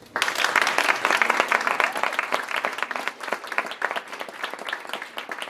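Audience applauding. It starts abruptly, is loudest for the first couple of seconds, then thins out to scattered claps.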